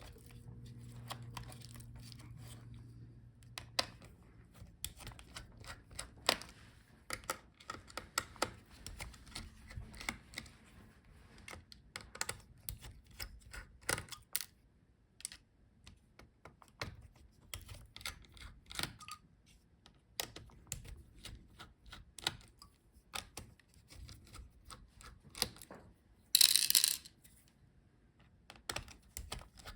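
Small screws being unscrewed from a laptop's heatsink: a string of light clicks and taps from the screwdriver and small metal parts. A low hum runs for the first few seconds, and a brief louder scrape comes near the end.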